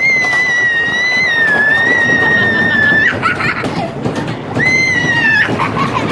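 Roller coaster riders screaming on the wooden coaster's drop: one long high scream of about three seconds, then a shorter one a little over a second later, over the rumble of the train on the track.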